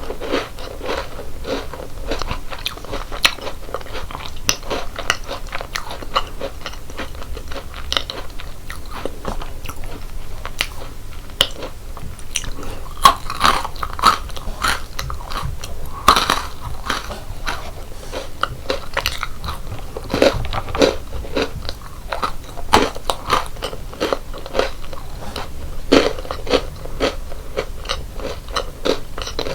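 Close-miked crunching and chewing of crisp chocolate snacks and biscuits, a steady run of small crackling bites with a few louder clusters of crunches.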